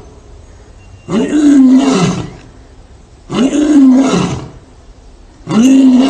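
Male lion roaring: three long, loud roars about two seconds apart, each sliding down in pitch at its end, the last still going at the end.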